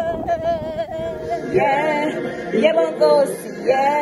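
Singing: one long held sung note that wavers slightly, then a stretch of several voices singing over one another from about a second and a half in.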